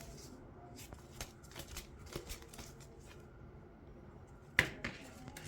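Paper and packaging being handled: light rustling and scattered soft taps, with one sharp click a little past halfway through the last second.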